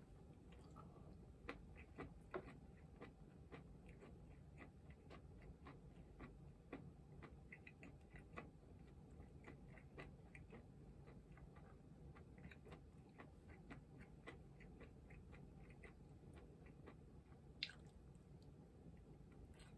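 Quiet close-up chewing of food, heard as many small irregular clicks, with one sharper tap near the end.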